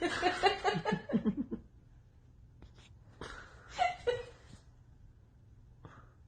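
A person laughing in a quick run of falling 'ha' sounds over the first second and a half. A shorter voice-like cry follows about three to four seconds in.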